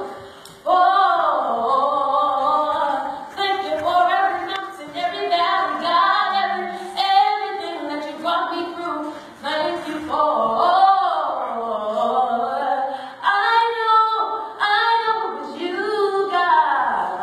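Female voices singing a gospel song, with little or no instrumental backing.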